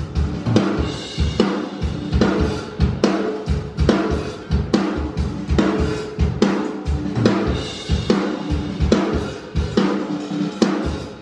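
Acoustic drum kit played in a steady rock beat: kick drum, snare and cymbals struck in a regular rhythm.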